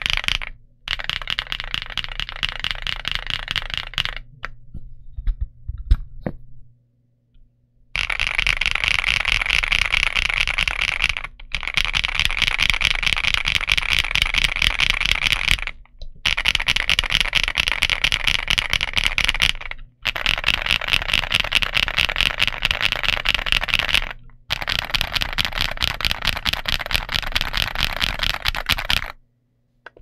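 Fast typing on a Gamakay TK75 Pro mechanical keyboard with KTT Hyacinth linear switches and PBT Cherry-profile keycaps: dense runs of key clacks in bursts of a few seconds, separated by short pauses. About four to seven seconds in, there are only a few slower single presses.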